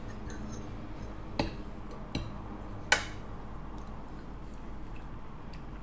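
Metal forks clinking against plates three times, the last clink the loudest, over a steady low room hum.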